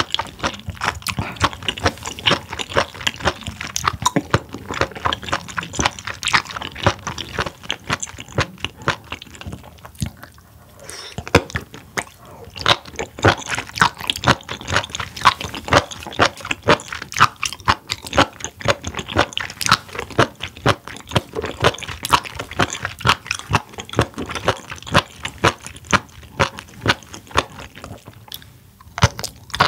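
Close-miked chewing of raw spoon worm: a quick, steady run of crisp, wet crunches and clicks, with a short pause about ten seconds in.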